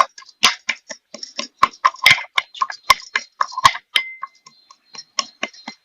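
Pestle pounding black peppercorns coarsely in a small mortar: quick, uneven strikes about four a second, some leaving a brief ring.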